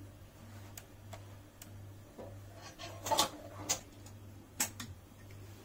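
Light metal clicks and knocks of a pressure cooker's lid being fitted and its handle closed: a handful of scattered taps, the loudest knock about three seconds in.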